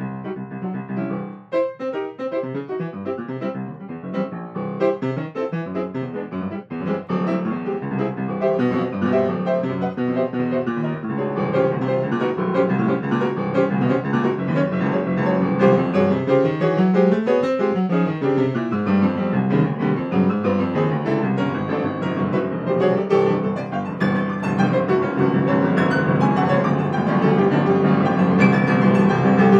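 Yamaha grand piano played solo, freely improvised: dense many-note passages that grow gradually louder, with sweeping runs that spread apart and close back together around the middle.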